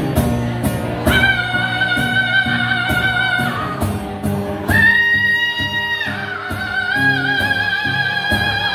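A man singing three long, high held notes over a strummed acoustic guitar, the middle note a little higher and the last one with vibrato.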